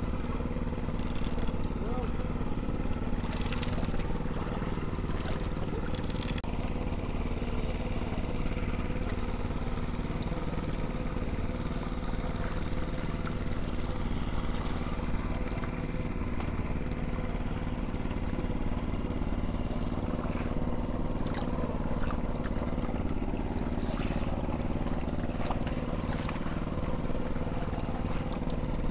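A small fishing boat's engine running steadily at an even pitch, with a few brief noisy bursts over it.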